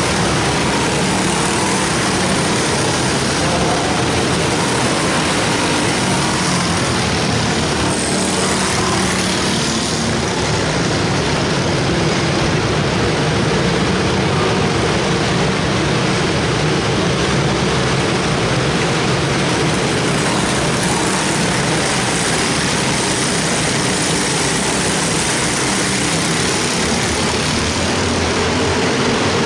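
Engines of several small junior-class race cars running together as they lap an indoor dirt oval: a steady, continuous drone of overlapping engine notes.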